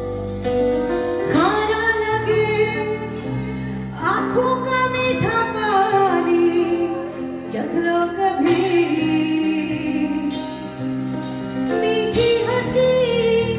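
Live band music with female lead vocals: women singing long, gliding melodic lines over the band.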